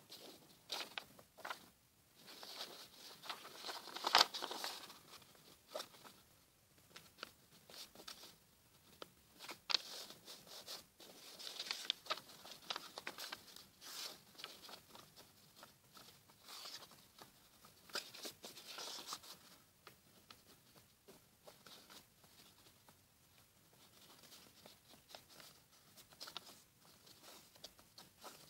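A sheet of paper being handled and folded by hand: irregular rustling and crinkling with sharp clicks, loudest about four seconds in.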